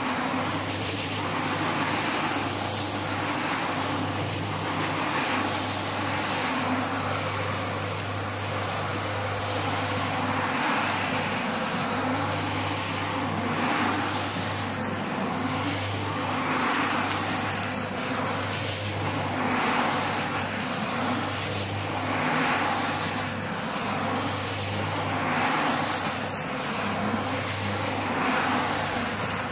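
Single-disc rotary scrubber running with a steady low electric-motor hum while its spinning brush scrubs a wet, foam-soaked shag rug. The wet swish of brush through pile swells and fades every second or two as the machine moves over the rug.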